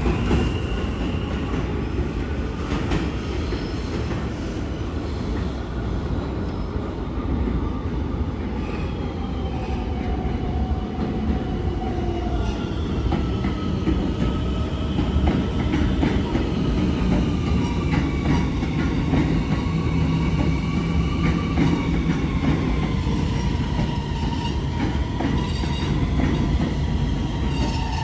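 New York City Subway trains running on elevated steel track: a steady low rumble with wheel squeal wavering up and down in pitch. From about halfway in, quick clicks of wheels over rail joints join it as an R68 train passes on the far track.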